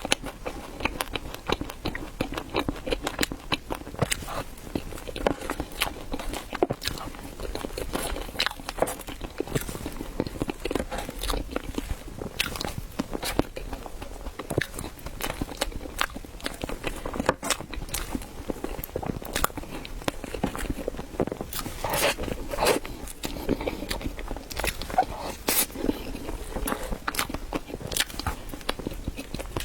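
Close-miked eating sounds of chilled bread being bitten and chewed: a steady run of irregular wet mouth clicks and smacks.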